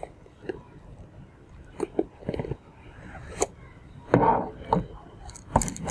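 A phone's cardboard retail box being handled and opened by hand: scattered taps and knocks, with a brief louder scraping rustle about four seconds in.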